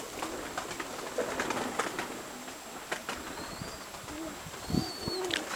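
Nikolaev pigeons cooing several times, with scattered light clicks and knocks. A couple of faint high chirps sit above them.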